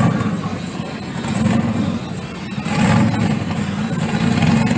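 Tuned Chevy Camaro's engine running loud and heavy, growing louder again about three seconds in.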